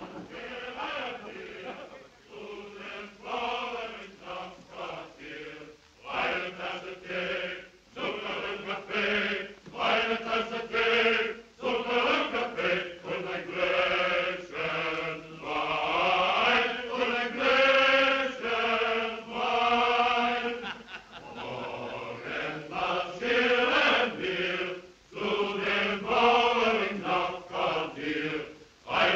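Voices singing a slow, chant-like song in phrases, with short breaks between them.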